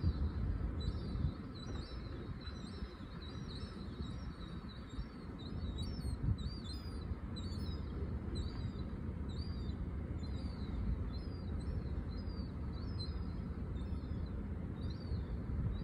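Juvenile gulls begging from an adult gull: short, thin, high-pitched calls repeated over and over, roughly one or two a second, over a steady low rumble.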